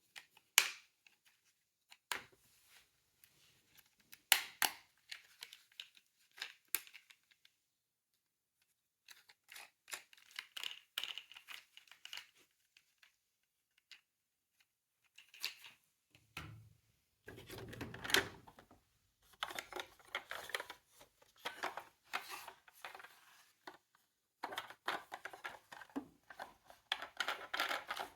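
Scattered clicks and plastic clatter of small toy cars being handled, with denser, longer rattling in the second half.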